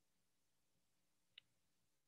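Near silence: room tone during a pause in speech, with one faint short click about one and a half seconds in.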